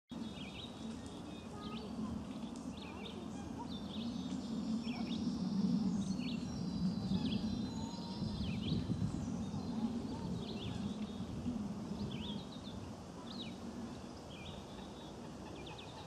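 Outdoor ambience by open water: birds chirping and calling in short repeated notes, over a steady low rumble.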